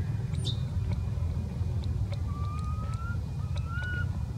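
Steady low rumble with scattered short, high chirps and two thin, slowly rising whistled calls a little past the middle.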